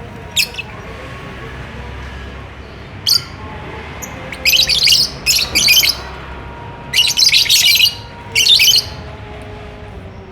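Lovebirds chattering in about six short bursts of shrill, scratchy chirps with pauses between them, over a steady low background noise.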